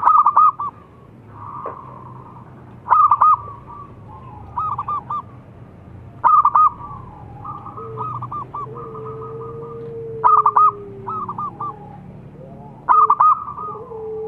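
Zebra doves (perkutut) cooing: loud bursts of rapid, rolling coo notes about every three seconds, with quieter calls of other doves answering in between.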